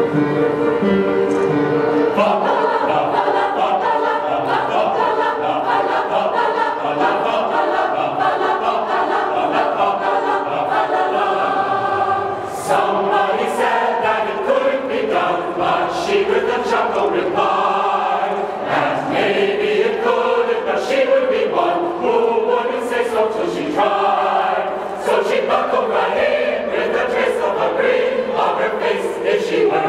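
A large group of men and women singing a song together.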